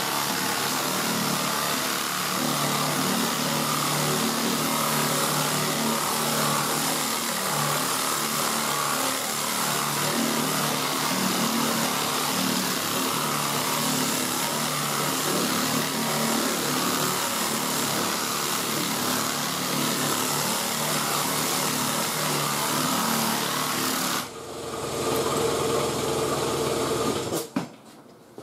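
Pneumatic air file (straight-line sander) with 40-grit paper running steadily, its air motor hissing and the paper rasping across body filler on a repaired door bottom. About three seconds before the end the sound changes briefly, then the tool stops.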